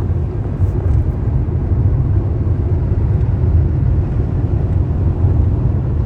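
Steady low rumble of a car driving at road speed, heard from inside the cabin: tyre and engine noise with no distinct events.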